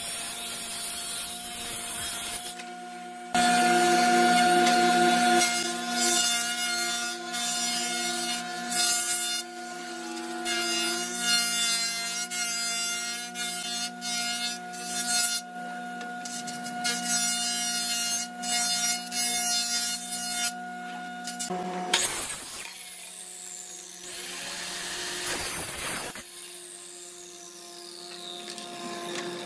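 Electric jointer running with a steady motor hum while a board is fed over its cutter head, the blades shaving the wood in several passes a few seconds long. The hum stops about 21 seconds in, and a few softer noisy swells follow.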